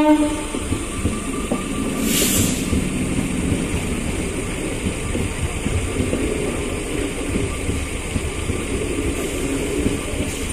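Eastern Railway EMU local train running through a level crossing without stopping: a steady rumble and rattle of the coaches on the track. The train's horn cuts off just at the start, and a short hiss comes about two seconds in.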